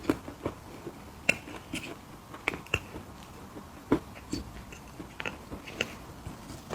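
Close-up chewing of mini cookies: scattered crunches and wet mouth clicks, irregular, with sharper crunches about a second in and again near four seconds.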